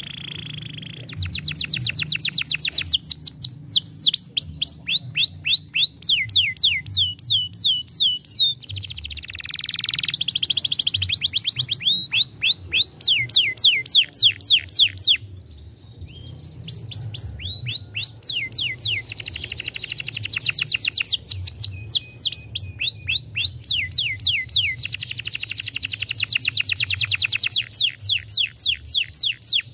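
Young canary singing: fast trills of rapidly repeated downward-sweeping notes, switching to a new trill every second or two, with a brief pause about halfway through.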